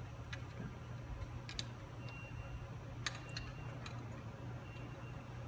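A few sharp, irregular clicks and taps as a floor scrubber's squeegee blade is handled and fitted back into its metal squeegee frame, over a steady low hum.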